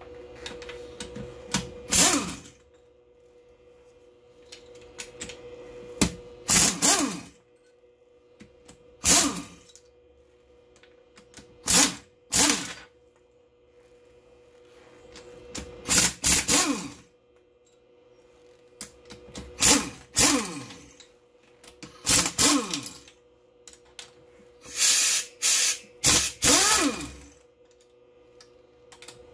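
Cordless drill-driver with a 14 mm socket running in short bursts of about a second, some ten times, spinning the cylinder head nuts off a Suzuki Bandit engine. Several bursts fall in pitch as the motor slows.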